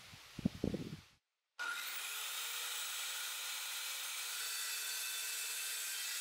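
A few low knocks of handling, then from under two seconds in a corded circular saw starts, its motor whine rising as it spins up, and runs steadily cutting through a wooden board.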